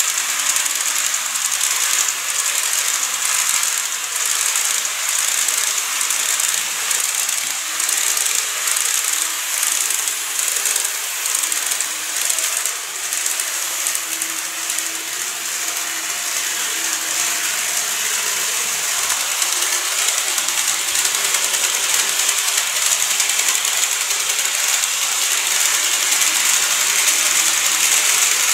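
N-gauge model electric trains running on plastic viaduct track: a continuous fine mechanical rattle of small wheels over the rails and motor bogies.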